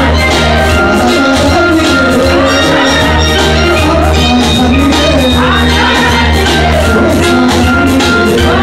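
Loud music with a steady beat and heavy bass, with a melody line running over it.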